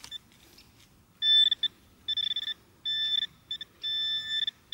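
Handheld metal-detector pinpointer probing loose soil in a dug hole, giving high-pitched alert beeps in short and longer stretches from about a second in: it is signalling a buried metal target close to its tip.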